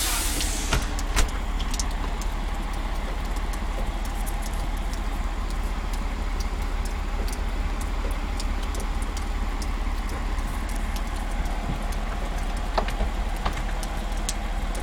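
Steady low rumble of parked fire trucks' diesel engines idling, with a few short clicks.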